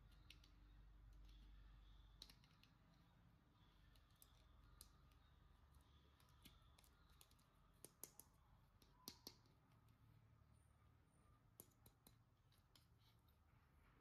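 Near silence, broken by faint irregular small clicks and taps, with a few louder double clicks about eight and nine seconds in.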